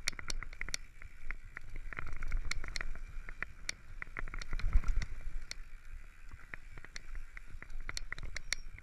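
Downhill mountain bike rolling fast over a dry dirt and gravel trail: irregular clicks and rattles from the bike and stones, over rumbling tyre and wind noise on the camera that swells loudest about five seconds in.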